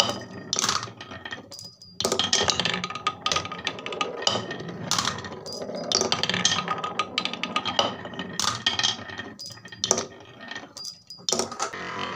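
Marbles rolling and clattering down wooden marble-run tracks, knocking against the wooden pieces as they drop from level to level, with a small brass bell tinkling several times as marbles pass under it.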